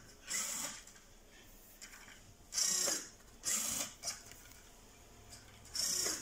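Small geared electric motor of a prototype low-cost mechanical ventilator whirring in short bursts: two quick strokes, then a pause, repeating about every three seconds as it cycles through its breaths.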